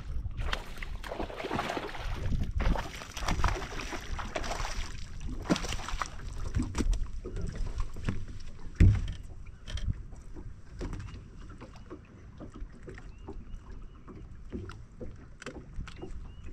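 Water splashing as a small largemouth bass is played at the surface and landed by hand beside a bass boat. Scattered knocks against the boat follow, with one loud thump on the boat about nine seconds in.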